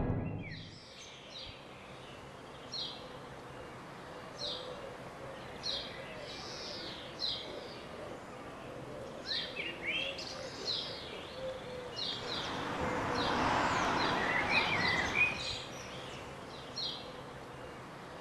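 Quiet outdoor ambience with a small bird chirping in short, high calls every second or two. About two-thirds of the way in, a rush of noise swells and fades.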